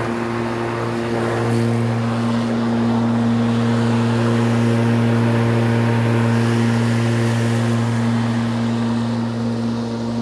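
Spear & Jackson S4037CR 40V cordless rotary lawnmower running steadily while cutting grass: a constant electric-motor and blade hum at one pitch, with a rough hiss of cut grass. It gets a little louder around the middle as the mower passes close by.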